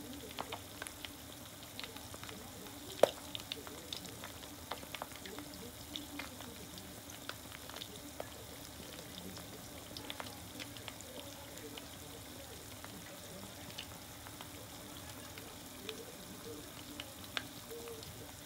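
Chicken karaage deep-frying in oil in a mess tin: a steady sizzle with scattered crackling pops, and one sharp click about three seconds in.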